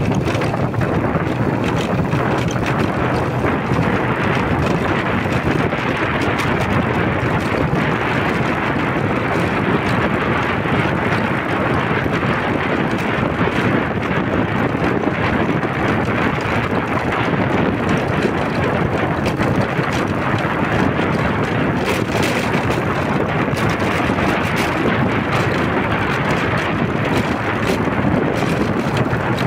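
Steady rushing wind noise on the microphone, as when filming while travelling along a road, with no pause or change.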